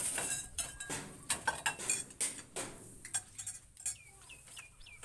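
Puppies suckling from their mother, giving quick irregular wet clicks and smacks. Near the end, a run of short high chirps, about three a second.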